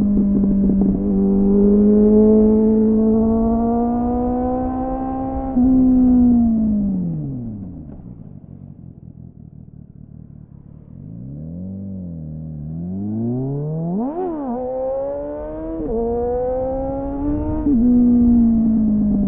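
Suzuki GSF600 Bandit's four-cylinder engine through an aftermarket SC-Project-style slip-on with a homemade dB-killer, heard onboard: it pulls steadily, then the throttle closes and the revs fall away to a quiet low burble for a few seconds. After a sharp throttle blip about two-thirds of the way in, it accelerates again with two quick upshifts, each a sudden drop in pitch, before settling at a steady cruise.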